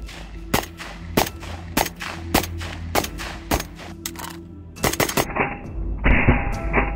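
Single rifle shots from a 5.45 mm AK-74, one about every 0.6 seconds, sharp cracks over background music. The music grows louder and denser about five seconds in.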